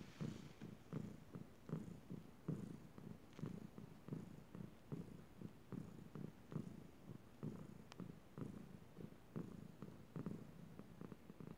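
Domestic cat purring close up, a low purr that swells and fades in an even rhythm a little more than once a second.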